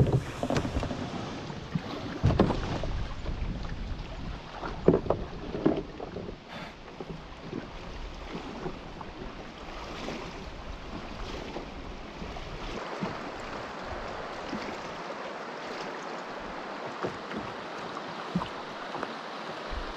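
Shallow river water rushing steadily past a canoe being pulled through it on a rope, with several heavy thumps in the first six seconds.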